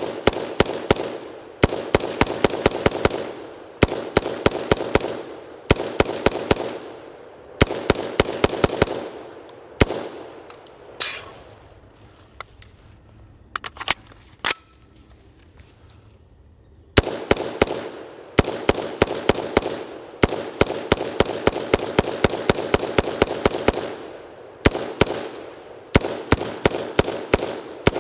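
BCM AR-15 in 5.56, fired dry and uncleaned, shooting fast semi-automatic strings at about four to five shots a second. Each shot rings out with an echo behind it. Short gaps break up the strings, and about ten seconds in there is a pause of several seconds with only a few clicks before the shooting resumes.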